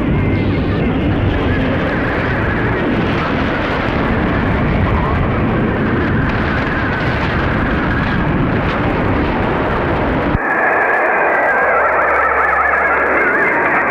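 Shortwave radio receiver on 6015 kHz playing a strange, harsh noise-like signal, which the uploader takes for a possible STANAG military data transmission. About ten seconds in the sound changes abruptly, turning narrower with steady tones running through it.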